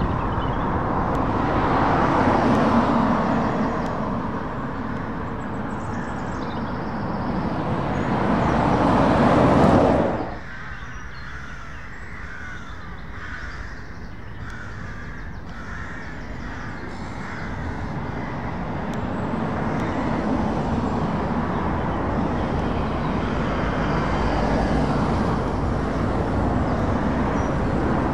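Road traffic passing: a Renault T lorry and cars go by with engine and tyre noise that swells and fades, then drops off sharply about ten seconds in. In the quieter stretch after, a bird calls repeatedly, before vans and cars approach and pass with tyre noise building again.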